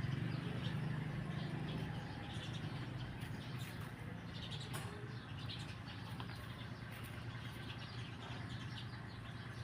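Faint outdoor background: small birds chirping in the distance over a steady low hum.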